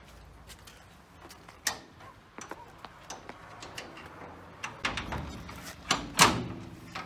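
A key clicking and rattling in the lock of an old rusty metal door, then louder metallic clunks as the door is worked loose and pushed, the loudest about six seconds in.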